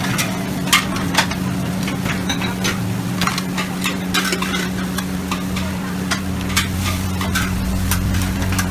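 Metal ladle clanking and scraping against a large wok as noodles are stir-fried, with the food sizzling in the hot oil. Repeated sharp clanks come at an uneven pace over a steady low hum.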